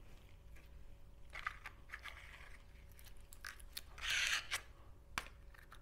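Yellow glossy slime with gold stars being handled and pressed into a small plastic tub: faint sticky crackles and clicks, then a short, louder squelching rush about four seconds in.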